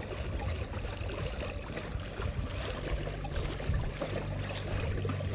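Water rushing and splashing along the hull of a moving fishing kayak, with a low steady hum underneath.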